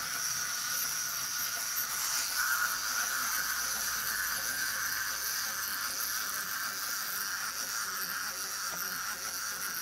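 Two plastic clockwork wind-up walking mechanisms whirring steadily as the toys walk.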